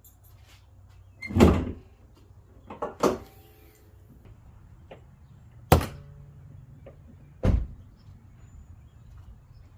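A car's door and hood latches worked in turn: four separate clunks and thuds, the loudest about a second in, a double knock near three seconds, then a sharp click and a last thud.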